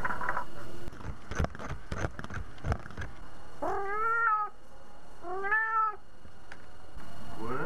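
A cat meowing twice, two drawn-out meows each rising and then falling in pitch, a little over a second apart. Before them come scattered knocks and rustles of the cat moving close to the microphone.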